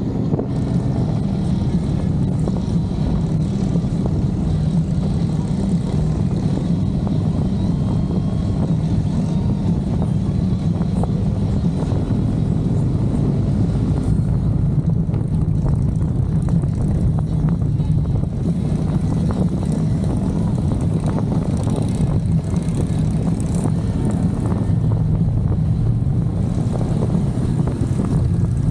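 Motorcycle engine running steadily, a constant low drone with no revving.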